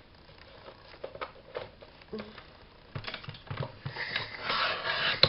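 Paper and card being handled at a craft table: scattered light taps and clicks, with a louder rustle about four seconds in.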